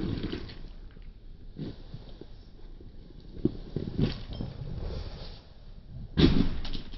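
Sneakers crunching and scraping on a loose river-stone gravel path in irregular steps, with a louder crunch a little after six seconds in.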